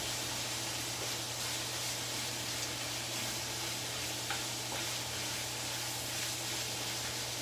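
Food sizzling as it fries in a wok, steady throughout, with the spatula stirring it and now and then clicking against the pan.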